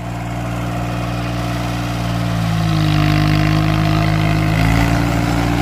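VST Mitsubishi Shakti tractor's 24 hp three-cylinder diesel engine running steadily in third-low gear, growing louder over the first three seconds, its note shifting slightly a couple of times.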